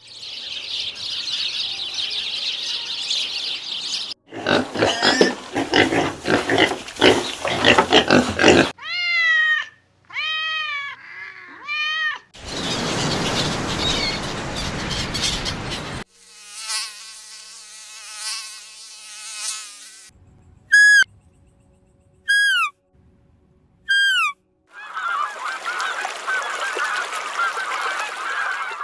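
A string of different animal calls in short separate clips cut one after another: noisy calls, three rising-and-falling pitched calls, a long call with many overtones, then three short falling calls and another noisy call near the end.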